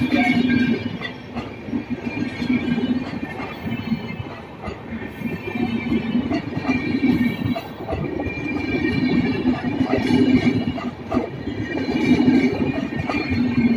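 Passenger coaches of an Indian express train rolling past close by: a steady rumble of wheels on rails with irregular knocks as the wheels cross the rail joints, and a thin high wheel squeal coming and going.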